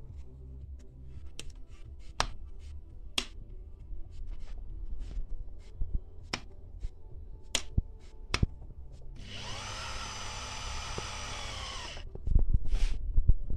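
Clicks and taps of the plastic and metal bobbin-winder parts being handled, then a small electric motor spins up, runs steadily for about three seconds and stops. A louder low thump follows near the end.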